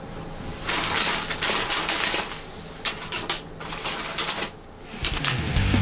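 A bundle of homemade stainless-wire fishing spreaders with swivels and snap clips, made from scrap car wiper-blade stainless, clinking and rattling against each other and sliding on a wooden board as they are spread out by hand, in several bursts. Rock music starts near the end.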